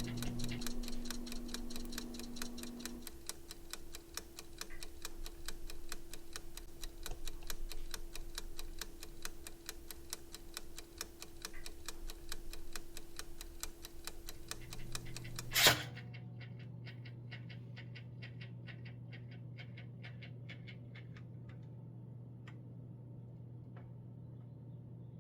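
1926 Toastmaster Model 1-A-1 pop-up toaster's clockwork timer ticking steadily over a low hum, then one sharp loud clack about two-thirds of the way through as the toast pops up. After it, fainter ticks slow and die away as the timer runs down.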